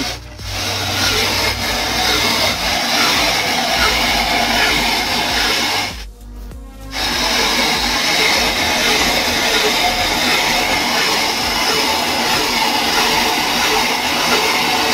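Hand-cranked metal grinding mill crushing dried eggshells: a steady grinding noise that stops for about a second near the middle, with background music.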